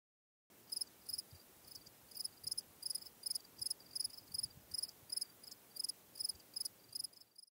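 A cricket chirping steadily, high-pitched, about three chirps a second; it starts about half a second in and cuts off abruptly near the end.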